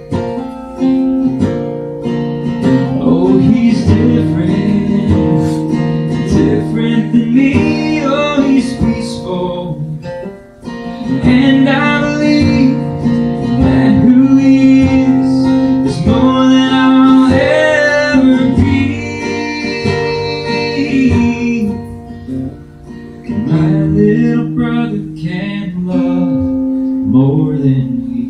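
Live acoustic guitar strummed and picked, with a man singing over it for much of the stretch; the guitar carries on more alone in the last several seconds.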